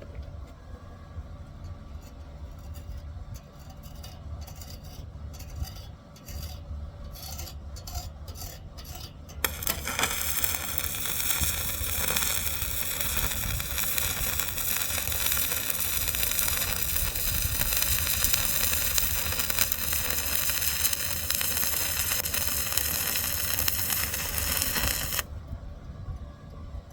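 Stick (arc) welding. For the first few seconds there are sputtering, on-and-off crackles as the arc is struck. Then comes about fifteen seconds of steady, dense crackling sizzle as the arc burns and lays a bead, cutting off suddenly near the end.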